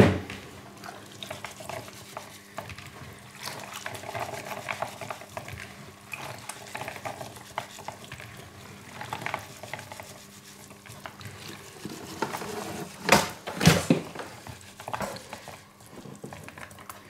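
Hands rubbing boiled chickpeas together in a plastic bowl to slip off their skins: a continuous soft squishing and clicking of the beans, with two louder knocks about thirteen seconds in.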